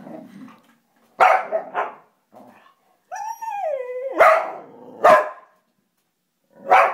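Formosan mountain dog barking in about five short, sharp, feisty barks, with a drawn-out call falling in pitch about three seconds in, just before the third bark.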